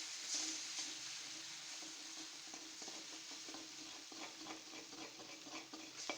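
Food frying in hot oil in a pan: a steady sizzle dotted with many small pops and crackles, loudest at first and easing off slightly as it goes on.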